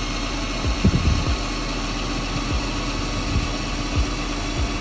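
Ryobi cordless drill running steadily with a 7/32 bit, pressed slowly through the jet ski's fender rail and hull side, its motor a steady whine, with a few low knocks about a second in as the bit works through the hole.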